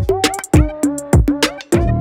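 Background music: an electronic beat with hard drum hits and pitched synth notes.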